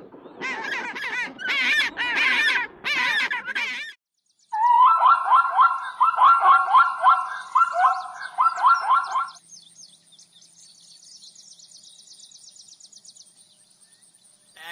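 Birds calling: about four seconds of harsh, wavering calls, then a run of loud repeated calls, then faint, rapid high chirping for the last few seconds.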